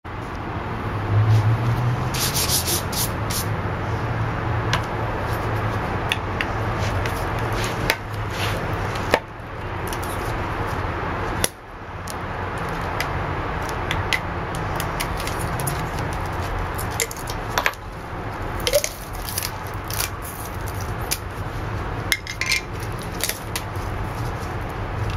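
Metal Plasti Dip cans and cardboard being handled, with scattered clicks and knocks, over steady background noise with a low hum.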